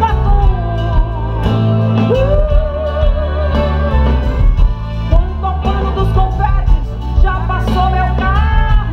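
A woman singing live with a full amplified band, with a strong bass and beat underneath. The sung line holds one long note about two and a half seconds in.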